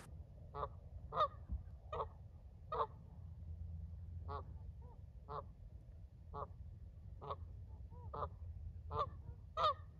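Geese honking repeatedly: about a dozen short honks, roughly one a second, some of them coming in quick pairs.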